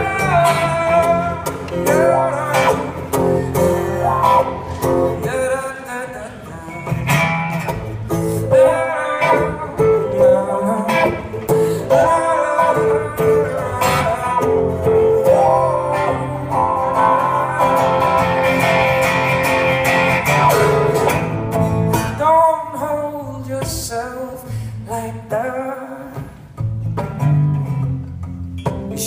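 Live music: solo acoustic guitar played through a song's introduction, with singing at times.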